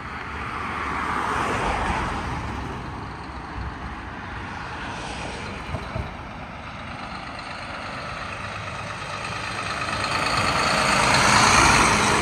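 Road traffic passing by: one vehicle swells and fades about a second or two in, then a louder vehicle, likely a truck, builds up with tyre noise and a steady engine hum and passes near the end.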